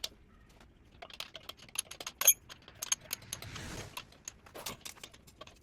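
Hand tools and nuts clinking on metal: irregular light clicks and clinks while nuts are worked off a dirt bike wheel, the loudest about two seconds in.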